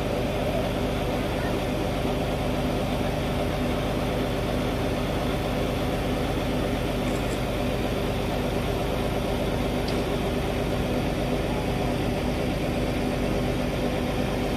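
Diesel engine of a truck-mounted crane lorry running steadily at idle, powering the hydraulic crane while it holds a suspended load.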